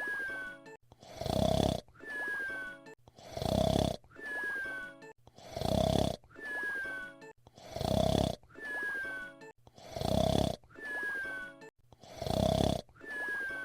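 Cartoon whistle-snoring: a loud snore on each in-breath, then a thin whistle falling slightly in pitch on the out-breath, repeating evenly about every two seconds, six snores and seven whistles.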